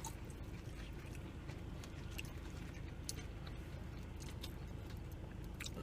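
Faint chewing of food, with a few soft mouth clicks over a steady low background hum.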